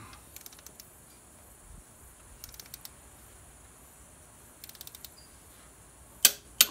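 Matco ratcheting torque wrench on DT466E cylinder head bolts: the ratchet pawl clicks rapidly in three short runs as the handle is swung back between pulls, then two loud sharp clicks come near the end.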